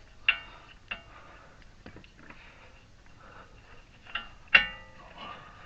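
Several sharp metallic clinks, each with a brief ring, from steel hand tools and sockets knocking against suspension parts. They are spread apart, and the loudest comes about four and a half seconds in.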